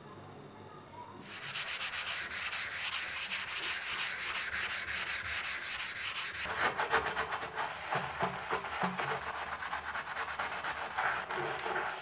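Rapid back-and-forth scrubbing strokes on a white ceramic washbasin, scrubbing off limescale stains. The scrubbing starts about a second in and gets fuller and louder about halfway through.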